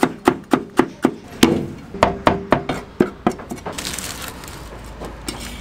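Chinese cleaver chopping green peppers on a thick wooden chopping block: a quick run of sharp wooden knocks, about four a second, that stops a little before four seconds in.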